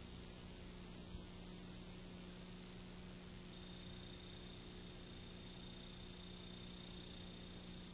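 Faint steady hiss and low hum of a videotape transfer, with no programme sound; a small click about a second in.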